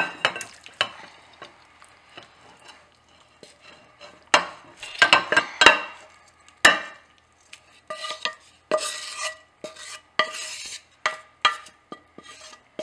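Wooden spatula scraping fish curry out of a nonstick frying pan into a ceramic bowl. There are sharp knocks and clinks in the first half, then several longer scraping strokes.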